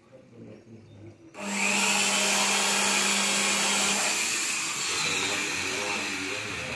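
Cordless power drill starting abruptly about a second and a half in and running continuously against an aluminium window frame section. A steady motor hum underneath drops away partway through while the drill keeps running.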